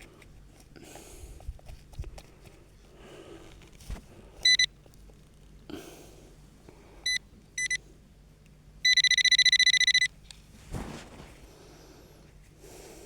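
Metal-detecting pinpointer signalling a metal target in a clod of soil: one short beep, two quick beeps a few seconds later, then a rapid pulsing tone for about a second. Faint rustling and knocks of soil being handled between the beeps.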